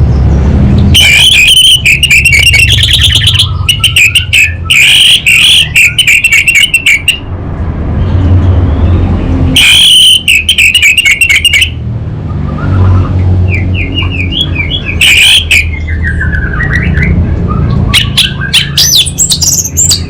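Orange-headed thrush singing in five loud bursts of rapid, crackling, fast-repeated notes, with shorter chips and slurred notes between them, over a steady low hum.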